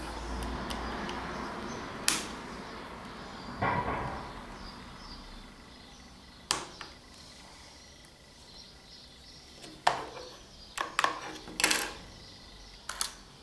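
Plastic and metal parts of a tape binder tying tool's head being handled and pried at with a pocket knife: a scraping rustle over the first few seconds, then scattered sharp clicks, several of them close together near the end.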